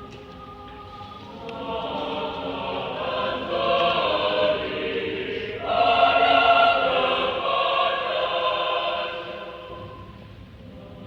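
Mixed adult choir of men's and women's voices singing held chords, building in loudness from about two seconds in to a peak in the middle, then softening near the end.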